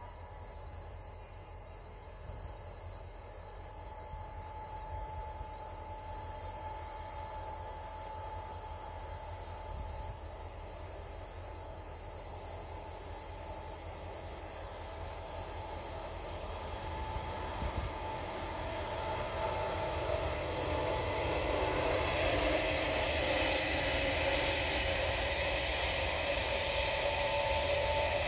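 Insects trilling steadily, then an electric passenger train approaching: its rolling noise and a steady whine grow from about two-thirds of the way in and are loudest near the end as it comes close.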